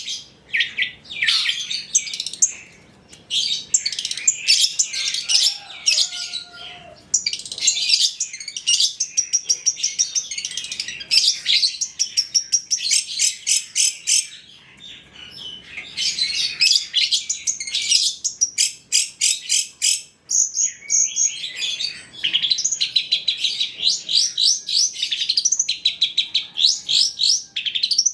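Long-tailed shrike (cendet) singing a fast, high-pitched chattering song of rapid chirps and trills, packed with mimicked phrases. The song comes in dense runs broken by a few short pauses.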